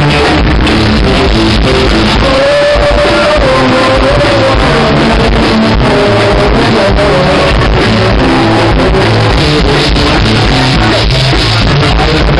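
Live band playing with singing, loud and rough in the recording. A long held note wavers from about two seconds in to about five seconds in, over a steady bass line.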